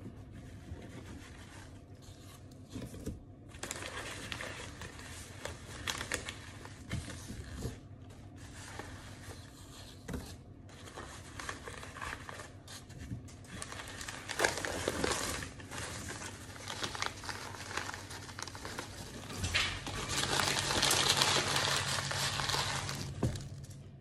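Brown paper bag crinkling and rustling as a hand digs through the hard white chunks inside, in irregular spells that grow loudest near the end.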